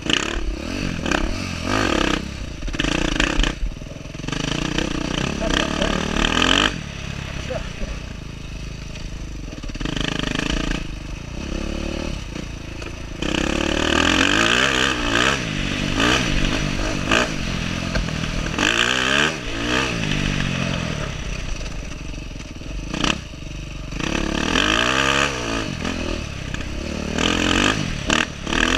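Dirt bike engine ridden hard, its pitch rising and falling again and again as the rider throttles up and backs off, with heavy wind rush on the helmet-mounted microphone.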